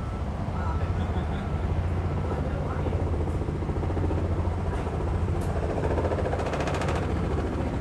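Helicopter engine and rotor noise, steady and low with a fast beat from the blades. About six seconds in, a brief buzzing rattle joins it.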